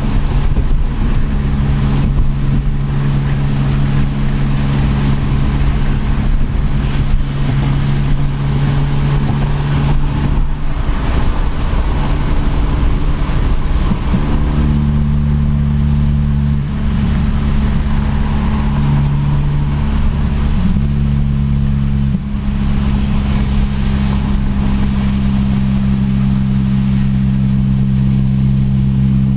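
Acura RSX's 2.0-litre four-cylinder engine running steadily through its exhaust, a constant droning note that shifts to a slightly different pitch about halfway through.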